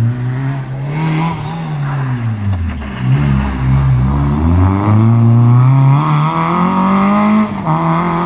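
Rally car engine slowing for a tight hairpin: the revs drop in steps as it brakes and downshifts, stay low through the bend, then climb steadily as it accelerates hard out of the turn, with a brief dip at a gear change near the end.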